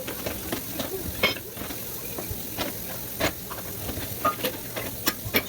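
Food sizzling in a hot pan while a utensil stirs it, knocking and scraping against the pan in irregular clicks, the sharpest about a second in and again about three seconds in.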